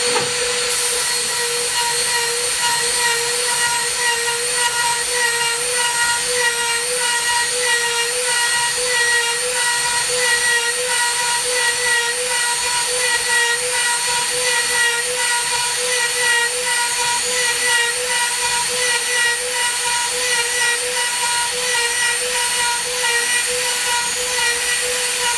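CNC router fast-roughing solid wood: a steady high whine over a hiss of cutting, with a pitched tone that wavers slightly throughout.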